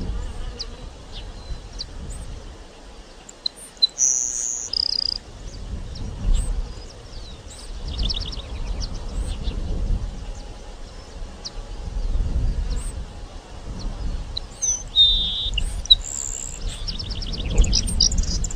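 Grassland sparrow (Ammodramus humeralis) singing. Its song is a couple of thin, high notes followed by a quick dry trill, heard about four seconds in and again near the end, over a low rumble.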